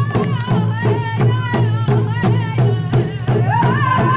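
Ojibwe drum group singing to a large hand drum struck with a steady, even beat, the voices high-pitched and wavering over the drumbeats.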